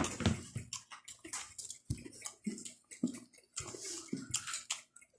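Close-up chewing of raw leafy vegetables: a run of irregular, wet, crisp crunches and mouth sounds.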